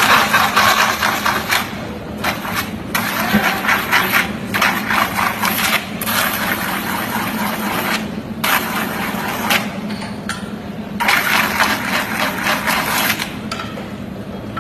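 Metal-spinning lathe turning a large sheet-metal satellite dish: the motor hums steadily while a hand-held spinning tool scrapes against the turning metal in repeated bursts of a second or more, with short breaks between them.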